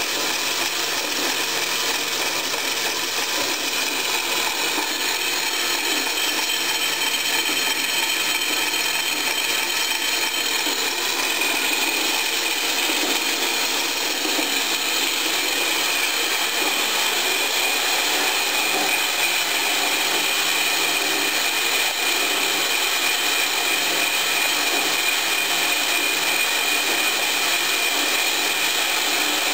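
Homemade gravity-fed metal band saw running, its blade sawing through a round aluminum bar. A steady sawing noise with high ringing tones that grow stronger about halfway through.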